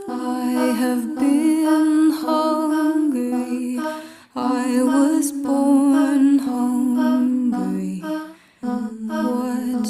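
Background music: a soft hummed vocal melody in long held notes that step in pitch, with two short breaks.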